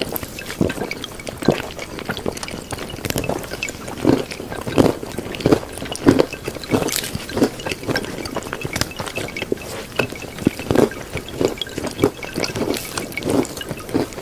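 Water sounds: irregular dripping and plopping drops, several a second, over a steady hiss.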